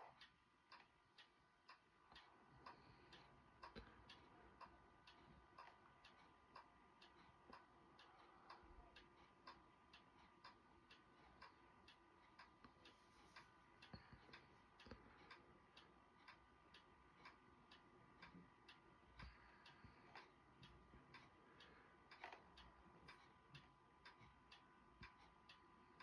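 Near silence with faint, regular ticking, about two to three ticks a second, over a faint steady high hum.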